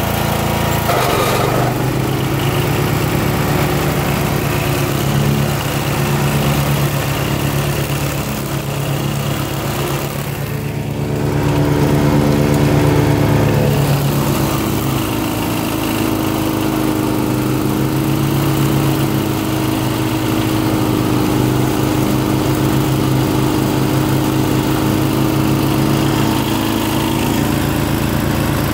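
MTD Yardman DX-70 ride-on mower running steadily. The engine sound dips briefly about ten seconds in, then swells louder for a couple of seconds before settling back to an even note.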